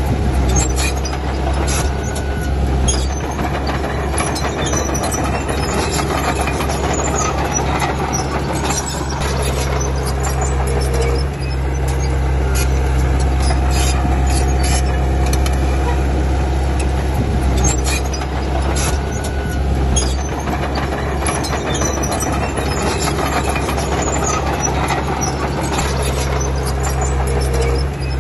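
Komatsu D31P bulldozer's diesel engine running steadily, with many short clicks and knocks throughout.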